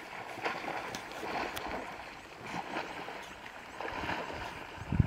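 Water splashing in irregular bursts as a young kudu plunges through a dam with African wild dogs swimming at its heels. A single low thump near the end.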